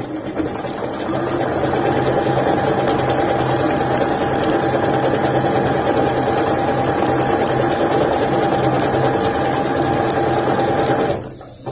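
Usha Janome Dream Maker 120 computerized sewing machine stitching a decorative pattern, its motor and needle running at a steady speed. It comes up to speed over the first second and stops shortly before the end.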